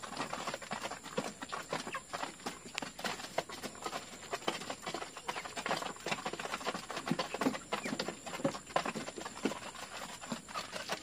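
A flock of chickens pecking feed from feeder trays: a dense, irregular tapping of beaks on the trays.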